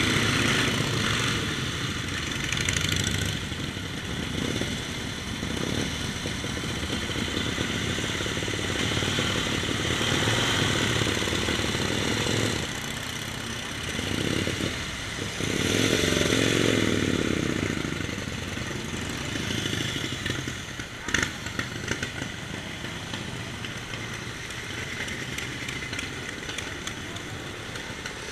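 Antique motorcycle engines running as the bikes pull away one after another, each engine note growing louder and then fading as it passes, several times over.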